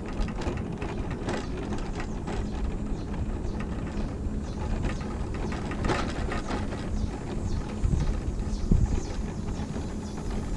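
Battery-powered mobility scooter driving over cracked asphalt: a steady motor hum under a run of clicking and rattling from the scooter's frame and parts over the bumps.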